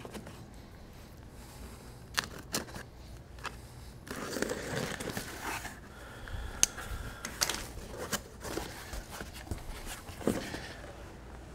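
Cardboard shipping box being opened by hand: packing tape being worked off the top seam, with scattered sharp clicks and scrapes and a longer rustle of cardboard, ending with the flaps being folded open.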